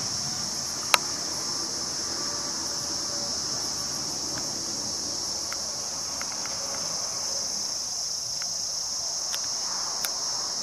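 Steady high-pitched insect chorus, with a sharp click about a second in.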